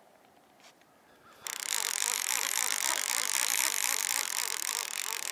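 Baitcasting reel being cranked to wind in line, a steady whir that starts suddenly about a second and a half in after near silence.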